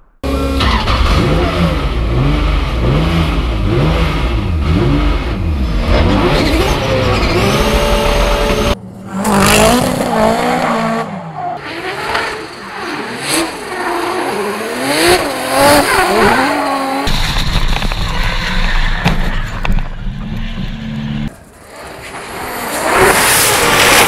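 Drift car engines revving hard, rising and falling again and again as the cars slide, with tyre squeal. The sound cuts abruptly between several passes.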